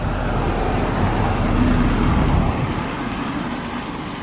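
Car towing a small teardrop caravan passing close by, its tyre and engine noise swelling to a peak about two seconds in, then fading as it pulls away.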